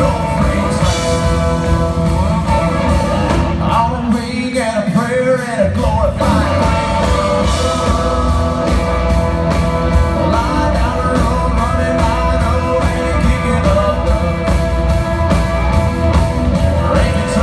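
Country band playing live with fiddle, guitars, drums and keyboard. About four seconds in, the bass and drums drop out for roughly two seconds, then the full band comes back in.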